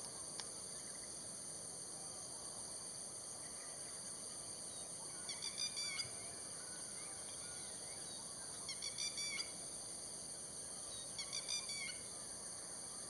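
A bird calling in three short bursts of quick chirpy notes, about five, nine and eleven seconds in, over a steady high-pitched insect drone.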